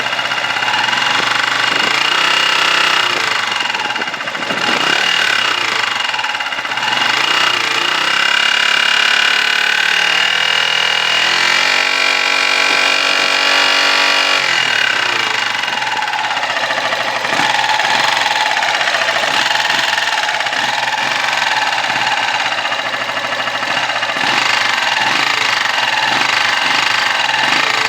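Stels Flame 200 motorcycle engine being revved up and down several times from an uneven, out-of-tune idle, with a knock the owner puts down to the camshaft.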